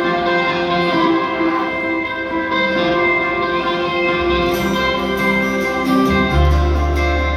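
Rock band playing live in an instrumental stretch, with held guitar notes ringing. Bass notes and cymbal strokes come in about halfway through.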